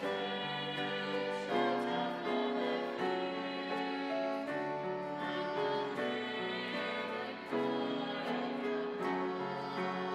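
A small choir singing in unison, accompanied by a soprano saxophone and a strummed ukulele, with sustained notes changing every second or so.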